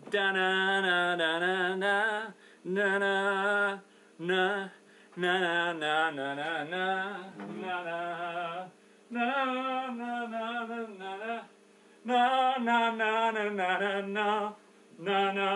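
A man singing alone without accompaniment, in wordless phrases of a second or two broken by short pauses.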